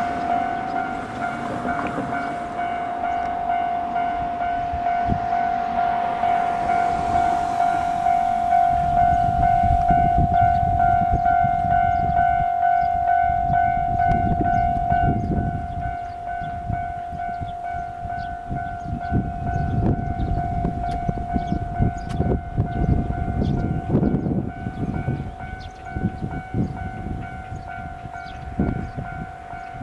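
Japanese level-crossing warning bell ringing as a steady electronic tone, quieter in the second half. From about nine seconds in, a Kishu Railway diesel railcar rumbles over the crossing, its wheels clicking irregularly over the rail joints.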